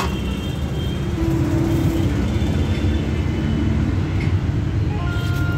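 Steady low rumble of street background noise, with a few faint short tones above it.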